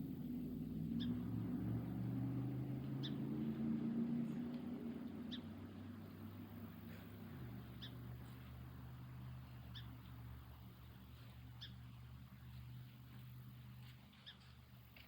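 A low, steady motor hum that drops in pitch about halfway through, with short, faint high chirps repeating every couple of seconds.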